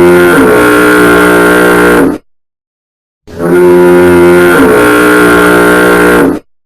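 Very loud, distorted foghorn blasts: one blast cuts off about two seconds in, and after a second of silence a second blast of about three seconds sounds, each a single held, multi-toned horn note.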